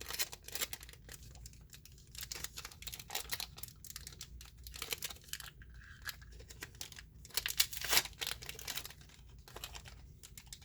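Crinkling and tearing of a Disney Lorcana booster pack's foil wrapper being opened by hand, a string of short crackles and rustles, loudest about eight seconds in.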